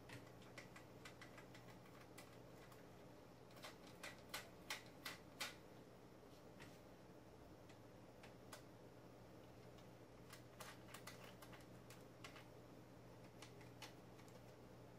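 Faint clicks and taps of hands handling a telescope finder bracket and its metal thumb nuts while mounting an EZ Finder sight on the tube. A quick run of about five sharper clicks comes around four to five seconds in, and more scattered clicks after about ten seconds.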